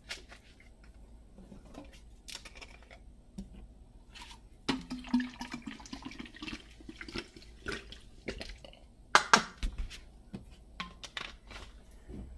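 San Pellegrino sparkling water being poured from a bottle into a stainless insulated drink bottle, starting about five seconds in and lasting about four seconds. A sharp knock follows, then a few lighter clicks.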